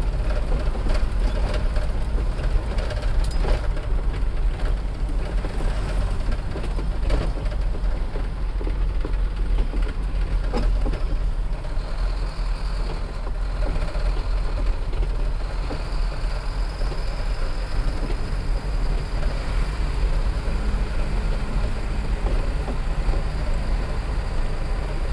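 A moving vehicle's steady low engine and road rumble, with a few light knocks or rattles.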